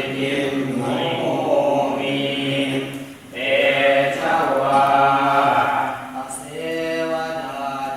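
Group chanting of Pali Buddhist verses in a near-monotone, male voices holding a steady pitch, with a short pause for breath about three seconds in and a brief dip near six seconds.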